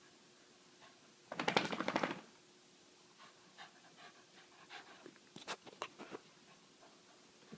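A dog panting hard in one quick burst of rapid breaths, followed by scattered light clicks and taps.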